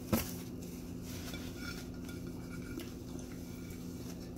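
A single clink of dishware as the cereal bowl is lifted and tipped up, then a low steady hum.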